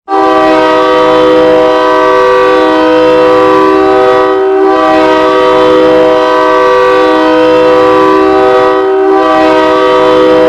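Hockey goal horn blasting: a loud air-horn chord of several tones held steadily, starting abruptly, with brief dips about four and a half and nine seconds in.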